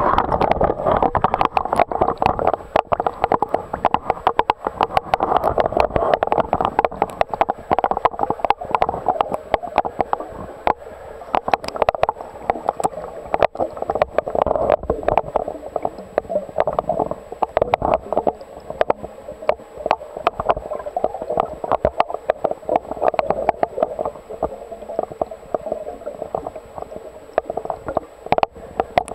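Underwater gurgling and crackling, muffled as heard through a waterproof camera housing, with a faint steady high whine above it.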